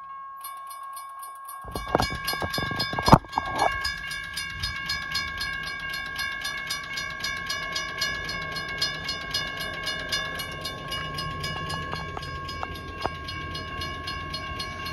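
Railroad grade-crossing warning bell starting up and ringing on in a fast, even pattern as the crossing signals activate. Two loud sharp knocks sound about two and three seconds in, over a low rumble.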